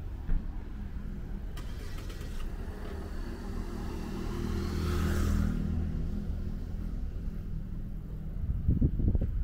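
A car driving past, its engine and tyre noise building to a peak about halfway through and then fading away. A few low thumps near the end.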